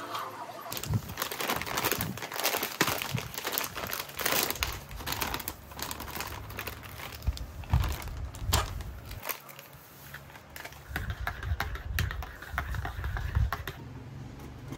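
Crinkling and rustling of a kraft-paper coffee bag being handled, with many scattered small clicks and knocks.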